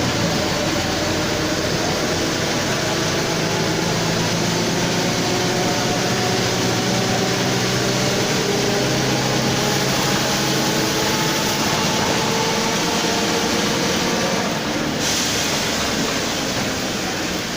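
Mercedes-Benz OF 1721 front-engined bus heard from inside while driving: the engine and a loudly growling driveshaft (cardan). The note rises slowly as it gains speed, then eases off a little near the end.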